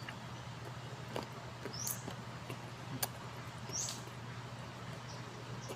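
Close-up eating sounds of raw green mango being bitten and chewed: a few short crisp clicks and wet mouth smacks, spaced out over a steady low hum.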